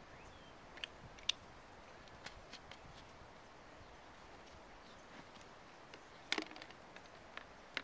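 Scattered light clicks and taps of plastic being handled: a bottle cap, a small cup and a plastic measuring pitcher. A small cluster of louder knocks comes about six seconds in.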